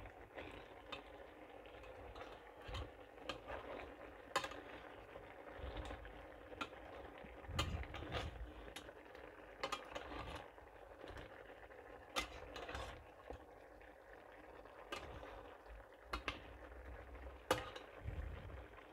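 Metal slotted spatula scraping and clinking against a stainless steel pan as chicken pieces in thick sauce are stirred and turned over, in irregular knocks and scrapes.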